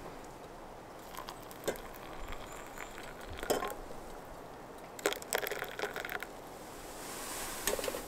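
Cups and a cracker packet being handled for a coffee-and-crackers breakfast: scattered light clicks and crinkles, a sharp knock in the middle, and a quick run of clicks a little later. A soft hiss swells near the end.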